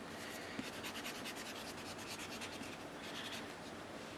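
An eraser rubbed on paper to clean it: light, quick scratchy strokes.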